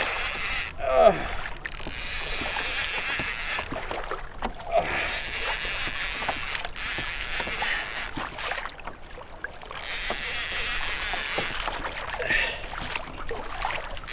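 Fishing reel being cranked under load in spells of a few seconds, a steady whirring with short pauses between, as a hooked kingfish is pumped up. A short falling squeak about a second in.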